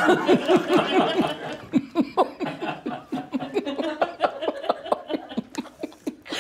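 Laughter: a long run of short laughs, about four or five a second, fading toward the end.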